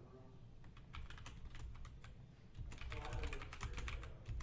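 Typing on a computer keyboard: quick runs of key clicks, one short burst about a second in and a longer flurry in the second half.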